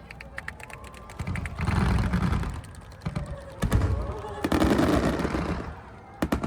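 Aerial fireworks bursting in quick succession: rapid crackling cracks, deep booms, and a long sizzling crackle, ending with two sharp bangs.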